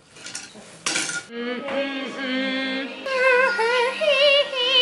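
A few sharp clinks of tableware in the first second or so, then a singing voice comes in about a second and a half in. It holds long notes with vibrato and climbs to higher wavering notes near the end.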